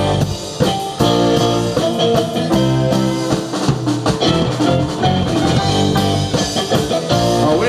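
Live rock band playing: electric guitar over a drum kit, with a steady beat and sustained chords.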